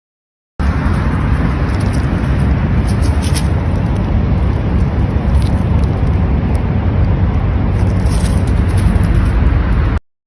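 Loud, steady low rumbling noise with a few faint clicks, starting abruptly under a second in and cutting off suddenly near the end.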